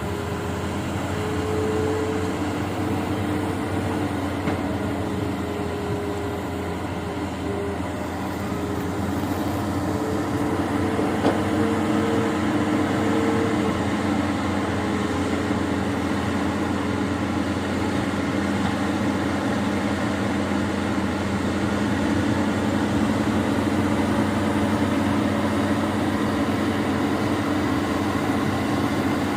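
Amphibious excavator's diesel engine running steadily under work, with steady tones that step up and down in pitch a few times and one sharp knock about eleven seconds in.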